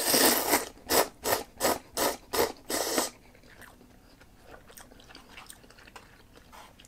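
A person slurping cup ramen noodles through the lips: one long pull, then a run of six short, loud sucks about three a second, followed by quiet chewing.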